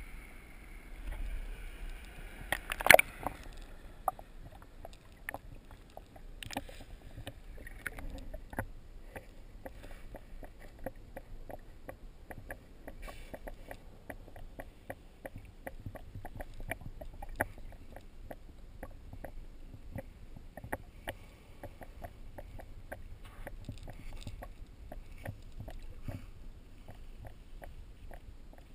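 Water sounds picked up by a GoPro in its waterproof housing at and below the surface: muffled, with a low rumble and many faint clicks and crackles. A loud sharp burst comes about three seconds in.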